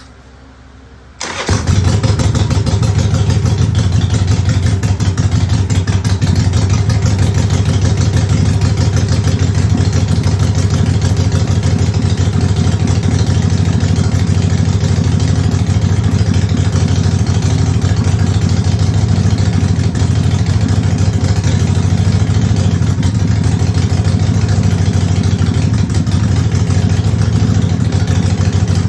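Harley-Davidson Sportster Forty-Eight's air-cooled V-twin engine starting about a second in, then idling steadily.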